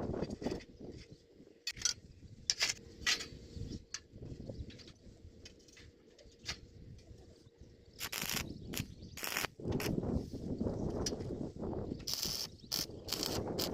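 Irregular clicks, knocks and scraping of metal pieces being handled, growing busier and louder about two-thirds of the way through.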